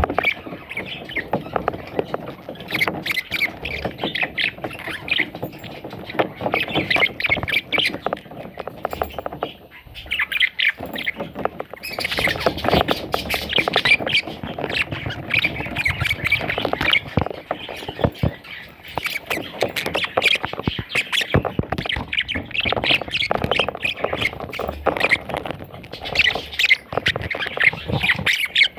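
Budgerigar chicks squawking and chirping, many rapid overlapping calls. There is a short lull about ten seconds in, and the calling is louder and busier from about twelve seconds on.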